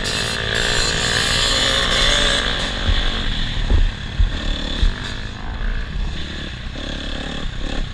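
Dirt bike engine running hard under throttle, heard close up from the rider's helmet with wind rush over it. The engine note wavers for the first couple of seconds, then backs off. Several low thumps follow as the bike goes over the rough track.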